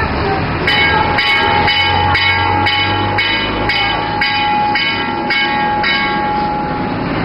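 About a dozen bell-like ringing strikes, roughly two a second, each with a sharp attack and a ringing tone, over steady background noise; the strikes stop about a second before the end.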